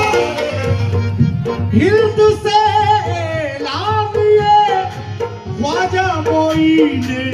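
Qawwali: male voices singing through microphones over harmonium, with a drum beat. The lead voice comes in about two seconds in with long, wavering held notes.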